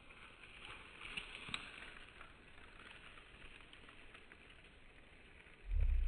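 Faint rustling and crackling of dry grass and twigs underfoot, with small scattered clicks. Near the end a sudden loud, low rumble starts, like wind or handling on the microphone.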